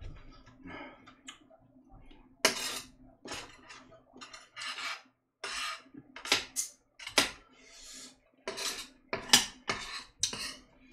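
Eating utensils scraping and clinking against dishes, in a run of short, irregular scrapes and clicks.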